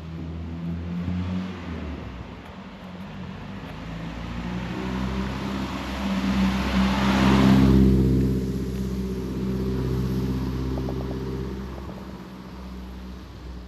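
A motor vehicle driving past close by. Its engine hum and tyre noise build to a peak about seven or eight seconds in, then fade away.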